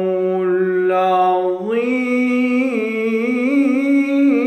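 A man's voice doing melodic Quran recitation (tajwid), holding one long drawn-out note with wavering ornaments. It steps up in pitch about 1.7 s in and carries on sustained.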